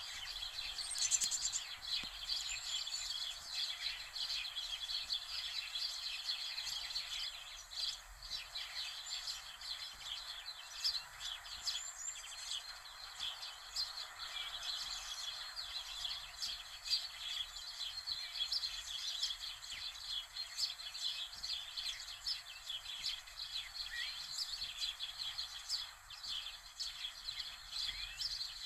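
Birds chirping continuously: many short, high calls overlapping throughout.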